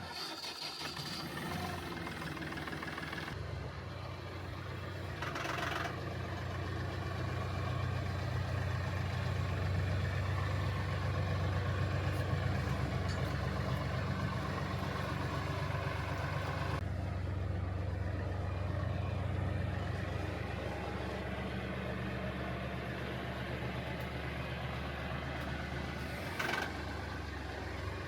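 Tractor engine running steadily while working, with two short scraping or clanking noises about five seconds in and near the end.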